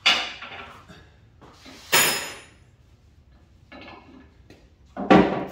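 Sharp metallic clanks and knocks from working inside the steel column of a Forward two-post car lift while a replacement hydraulic lift cylinder is fitted. The loudest clank, about two seconds in, rings briefly, and a heavier knock comes near the end.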